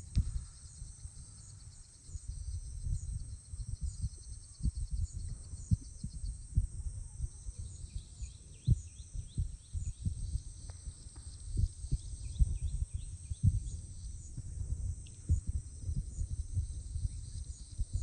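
Outdoor nature ambience dominated by wind buffeting the microphone in irregular low thumps and rumble, over a faint steady high-pitched hiss and a few faint short bird chirps.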